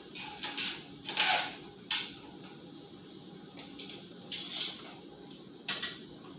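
Kitchen work sounds: about five short scraping and clinking noises from utensils and cookware, spread a second or so apart.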